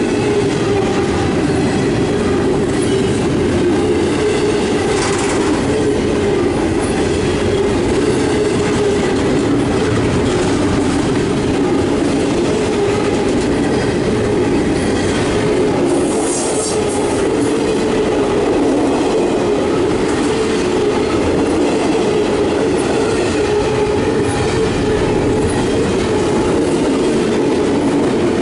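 Double-stack intermodal freight train's container well cars rolling past: a loud, steady rumble of steel wheels on rail, with a brief high wheel squeal about halfway through.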